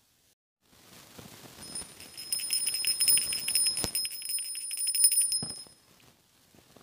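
A small bell shaken rapidly, its clapper striking many times a second, with a high, steady ringing over the strikes. It starts about a second in, grows louder, and stops about a second before the end.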